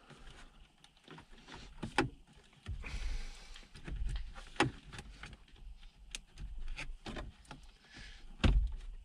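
Plastic dash trim surround of a Toyota LandCruiser 70 series head unit being worked loose by hand: a scatter of sharp plastic clicks and knocks as its clips pop free, with rubbing and handling noise between them. The loudest knock comes near the end.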